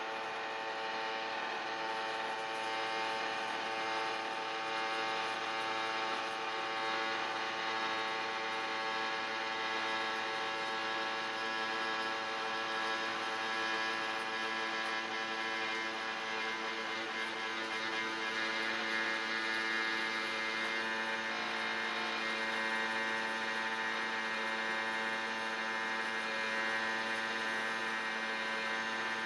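Motor of a Somfy-automated venetian blind whining steadily as the blind lowers, a sound made of many tones at once, shifting slightly about two-thirds of the way through. The motor is very noisy, which the owner judges unacceptable next to an identical blind.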